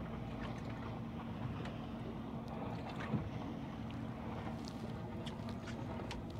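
Boat engine running steadily, a low hum under the wash of water and wind, with one light knock about three seconds in.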